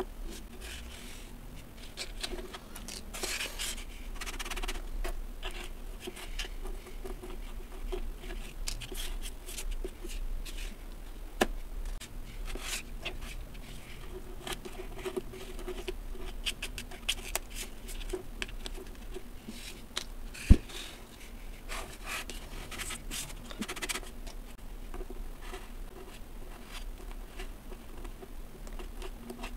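Kinetic sand crackling and crumbling as it is pressed and peeled out of soft plastic moulds, with light scratching of a small plastic tool picking sand from a mould. A single sharp tap about two-thirds of the way through is the loudest sound, over a faint low hum.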